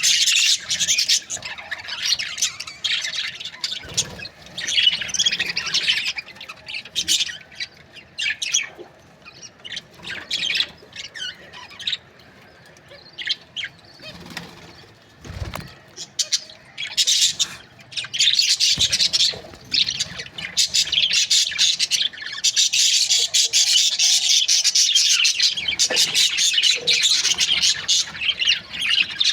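Budgerigars chattering and chirping, many rapid high-pitched warbles and squawks overlapping, busiest in the second half.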